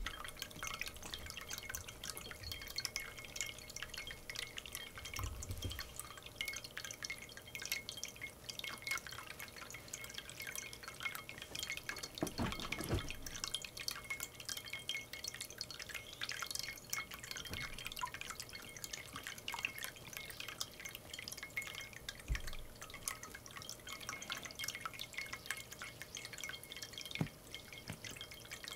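Pet drinking fountain with water trickling and dripping into its bowl, a steady patter of small drips.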